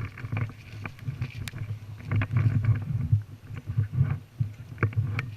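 Uneven rumbling and rustling of a player moving on foot with a body-worn camera, with a few sharp clicks scattered through it.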